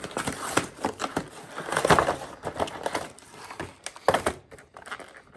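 Cardboard action-figure box being opened and its packaging insert pulled out: cardboard and plastic scraping and crinkling in a run of irregular rustles, loudest about two seconds in and again near the end.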